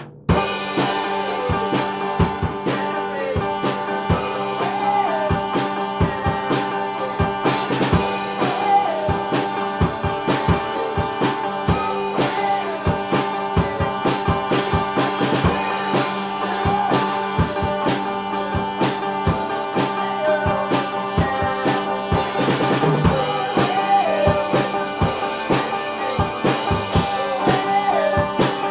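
Band music with a drum kit and guitar playing steadily: sustained chords under a wavering melody line and regular drum hits.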